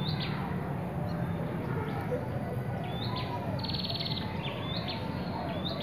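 Birds calling, a buzzy trill followed by a few short rising chirps, the phrase heard twice over a steady low rumble.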